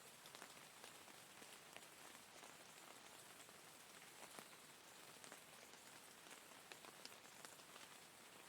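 Faint, steady rain: an even hiss with many separate drops ticking sharply on a surface.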